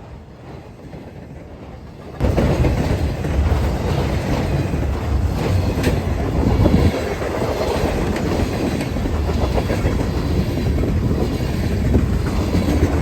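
Train passing close by, a steady heavy rumble with wheels clicking over the rail joints. It starts quieter and jumps suddenly much louder about two seconds in.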